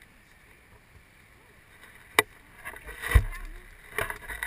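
A small hooked fish splashing at the surface as it is reeled to the bank and swung out of the water. There is a sharp click about two seconds in, and low thumps and rustling around the middle and near the end.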